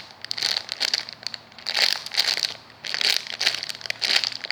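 Plastic packaging crinkling in a series of bursts about a second apart as a squishy toy is handled in it.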